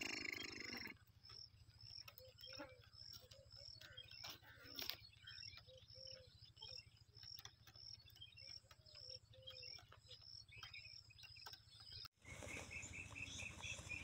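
Near silence with faint high chirps repeating about twice a second, a few soft low notes and a short rustle in the first second.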